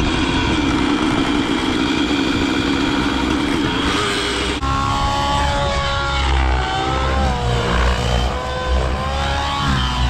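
Radio-controlled helicopter running: a steady whine and drone at first, then, after a cut about halfway through, the pitch of the motor and rotor rises and falls as it manoeuvres low over the field.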